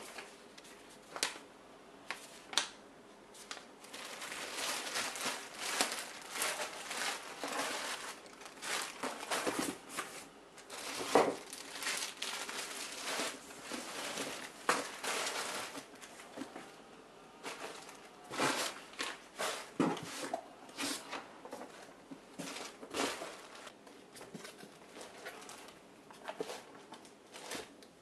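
Plastic bags and wrapping crinkling and rustling as items are handled and pulled out of a cardboard box, in irregular bursts with sharper crackles.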